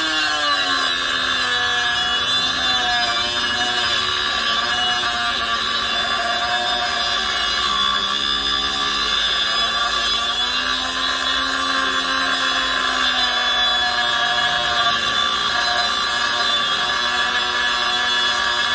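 Harbor Freight Chicago Electric 3-inch electric cut-off tool, a small 3-amp, 20,000 RPM corded motor, cutting through a grade 8 3/4-inch steel bolt with its abrasive disc. The motor whine and grinding hiss are steady and loud. The pitch drops as the disc bites and then sags and recovers as the load on the motor changes.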